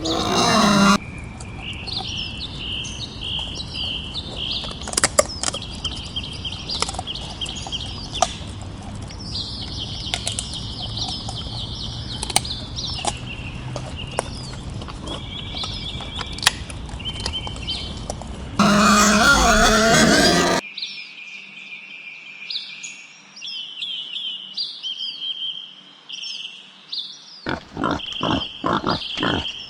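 Wild boar squealing loudly, briefly at the start and again for about two seconds in the middle, over steady bird chirping. Near the end comes a run of quick, repeated grunts.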